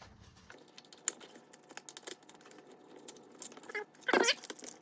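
Pliers pulling a small hinge pin out of a plastic seat-handle bracket: light scattered metal clicks and taps, with a short squeak about four seconds in.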